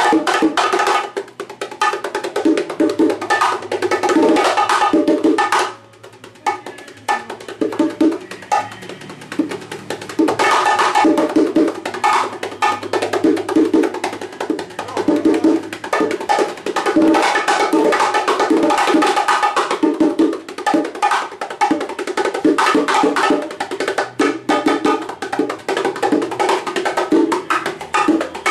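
Hand-played bongos in a live percussion jam with timbales, a dense rhythm of quick open tones and slaps. The playing drops quieter about six seconds in and comes back up about four seconds later.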